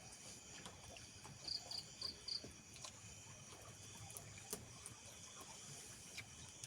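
Crickets chirping steadily, with a quick run of four short high chirps about a second and a half in, and scattered faint clicks.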